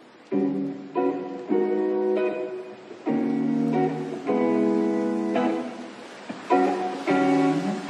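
Background music: strummed acoustic guitar chords, a new chord about every second.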